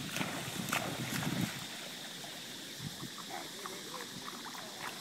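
Jack Russell terriers splashing as they run and wade through shallow water.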